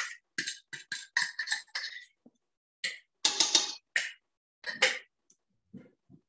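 A utensil scraping and knocking cooked spaghetti squash out of a bowl into a stainless steel pot: a quick, irregular run of short scrapes and clicks, about a dozen in all.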